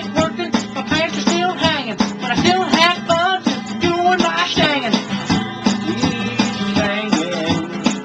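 Music: acoustic guitar strumming, with a voice singing over it.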